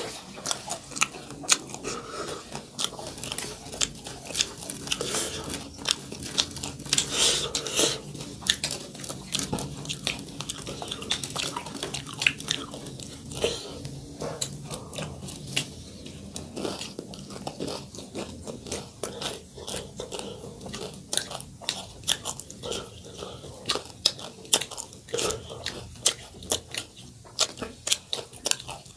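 Close-miked chewing and biting of food, with many sharp, irregular crunches throughout.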